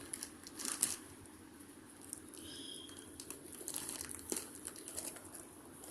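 Plastic snack wrappers crinkling and rustling in irregular bursts as a cat rummages in a box of snacks.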